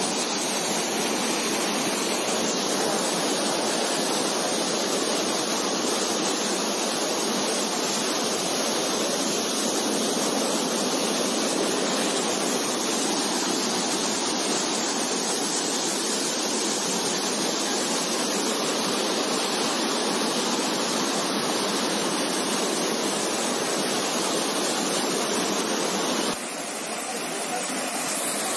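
Swollen river in flood: fast brown floodwater rushing and churning close below, a steady, loud rush of water that drops a little in level near the end.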